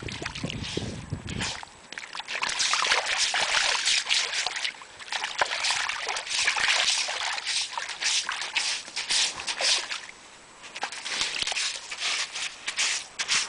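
A Curly Coated Retriever digging with a front paw in shallow water and wet sand: quick, irregular splashing strokes, with a short pause about ten seconds in.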